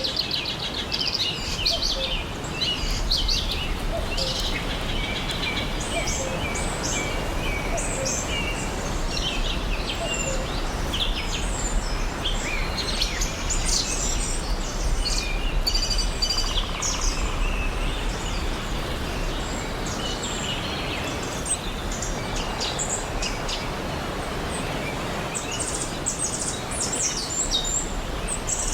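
Several small birds chirping and trilling in quick, overlapping calls over the steady rush of a forest stream.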